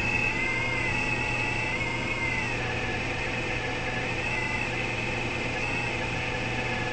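Radio-controlled scale Komatsu PC400LC excavator running, a steady machine whine as the arm moves. The whine's pitch bends up briefly a few times, about half a second in, near two seconds, and past four seconds.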